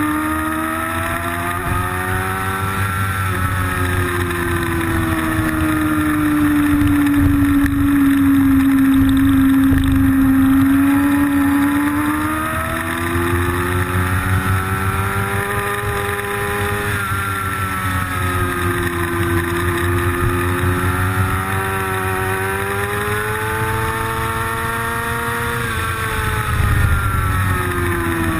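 Motorcycle engine at speed, heard from its own onboard camera: the note rises and falls through the bends and drops abruptly at a few gear changes.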